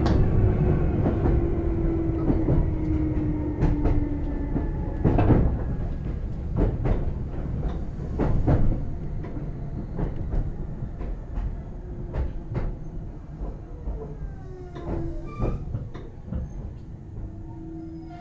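Inside a Meitetsu 6000-series electric train carriage as it runs: a steady rumble with irregular clacks of the wheels over rail joints. A motor hum falls slowly in pitch early on, and the whole sound grows quieter as the train slows. A steady whine sets in near the end.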